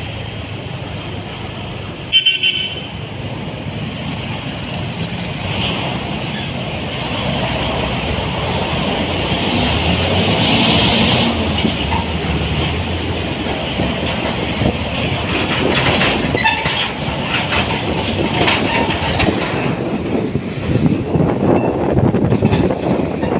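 City traffic heard from a moving motorcycle: steady engine, tyre and wind noise with passing trucks, and a short vehicle horn toot about two seconds in.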